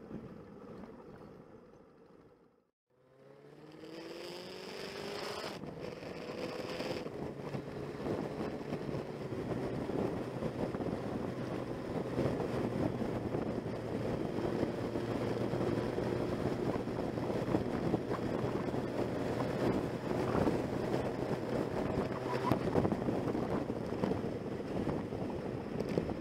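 Motorcycle engine heard from an onboard camera while riding, with wind rushing over the microphone. The sound cuts out briefly a few seconds in, then the engine pitch rises as it accelerates and settles into a steady cruise.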